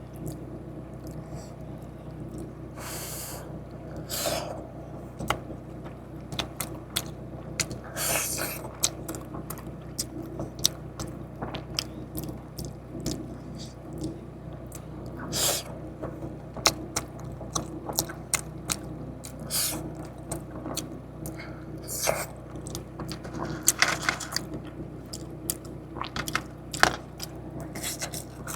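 Close-up eating of KFC fried food: chewing with wet mouth clicks, biting and occasional crunchy or scraping bursts, over a steady low hum.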